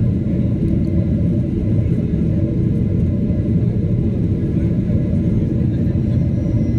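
Steady rumble of engine and airflow noise inside an airliner cabin during the approach to landing, with faint steady high tones above it.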